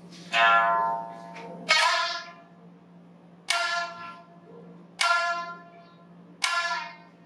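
Biwa (Japanese lute) strings struck hard with the plectrum: five sharp notes, each ringing out and fading, about one and a half seconds apart.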